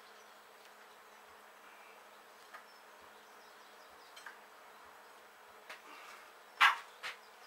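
Spanner working a seized nut welded onto a bolt: a few light metallic clicks, then a sharp knock and a smaller one near the end, over a faint steady hum.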